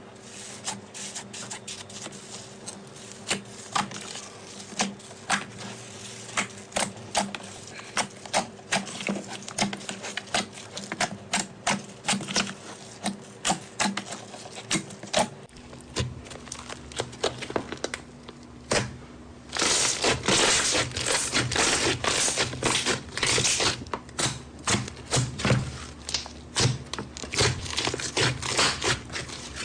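Slime being poked, squeezed and stretched by hand, giving a rapid run of small sticky clicks and pops. About 15 seconds in the sound changes to another clip, and from about 20 seconds the popping turns louder and denser, a crackling run.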